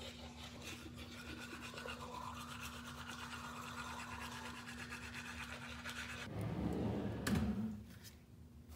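Manual toothbrush scrubbing teeth in quick back-and-forth strokes over a steady low hum. About six seconds in the brushing and the hum stop, and a louder, irregular rustling follows briefly.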